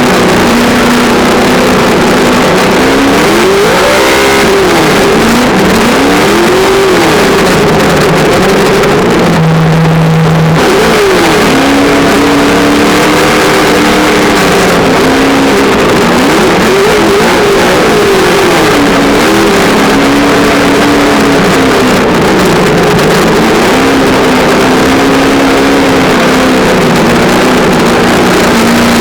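Traxxas Slash's On-Board Audio speaker playing a loud simulated engine sound, its pitch rising and falling over and over with the throttle. About ten seconds in it drops briefly to a low steady idle before revving again.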